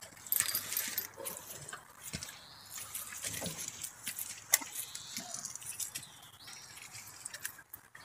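Horses milling about close by in a muddy paddock: hooves shuffling in the mud, with scattered knocks and clicks, the sharpest about halfway through.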